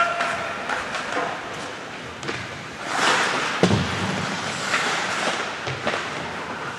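Ice hockey rink sounds: skates scraping on the ice, with a swell of scraping about three seconds in and a single bang of players or the puck against the boards just after it.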